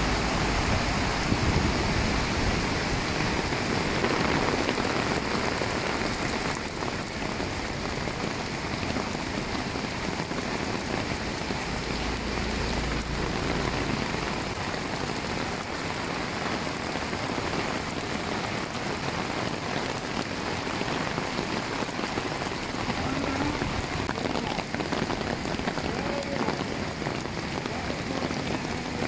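Heavy rain falling together with the rush of whitewater rapids, a steady, even hiss.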